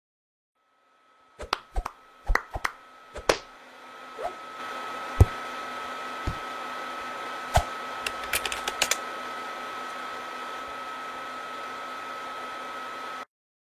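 A handful of sharp clicks, then a computer's cooling fan whirring steadily with a thin whine, as it does with the processor at 100% load; a few more clicks sound over it before it cuts off suddenly near the end.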